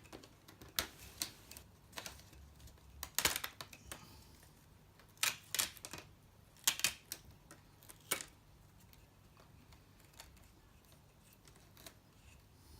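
Plastic screen bezel of an HP EliteBook 840 G3 being prised off by hand: a series of sharp clicks and snaps as its clips come loose, the loudest between about three and eight seconds in, only faint ticks after.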